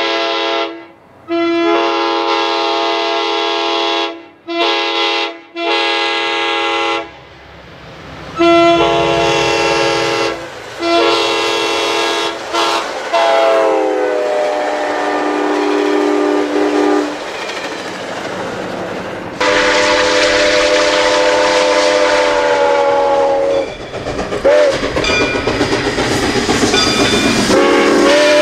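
Diesel locomotive chime air horns sounding a series of blasts, long and short, with the horn's pitch dropping as one train passes. Rolling train noise runs between the blasts.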